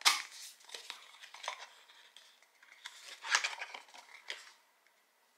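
Paper and cardboard packaging of an advent calendar box being opened by hand: crinkling and tearing, with a sharp loud rustle at the start and another burst of rustling about three seconds in.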